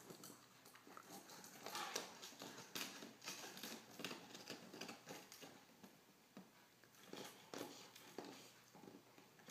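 Great Pyrenees gnawing on a giant rawhide bone: faint, irregular clicks and crunches of teeth scraping and biting into the rawhide.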